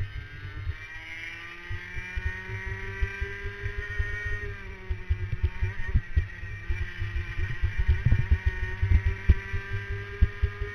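Racing kart engine heard onboard at speed, its pitch climbing, dipping about halfway through, then climbing again, with low rumbling thumps throughout.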